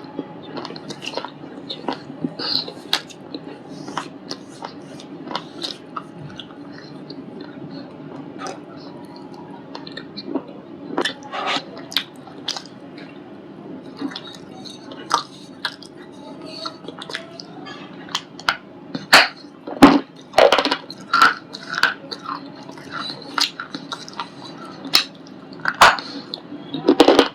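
Biting and chewing a white ball-shaped piece of shale stone: sharp, dry crunches scattered throughout, with a denser, louder run about two-thirds of the way through and another near the end.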